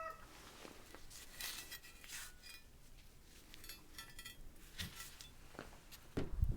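Faint scattered clicks and light metallic clinks, with a low thump near the end.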